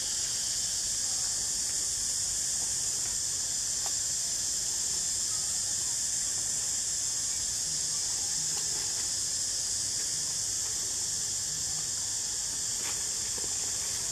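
Steady high-pitched drone of an insect chorus in the surrounding trees, unchanging throughout, with a few faint ticks from the macaques handling the rubbish.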